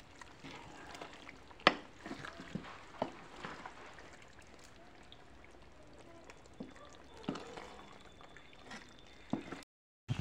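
Thick curry simmering and sizzling in a metal pot while a wooden spatula stirs it, with scattered scrapes and knocks of the spatula against the pot, the sharpest about two seconds in. The sound cuts out briefly near the end.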